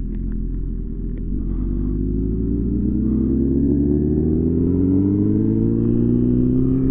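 Motorcycle engine pulling steadily in gear, its pitch rising slowly and evenly as it accelerates.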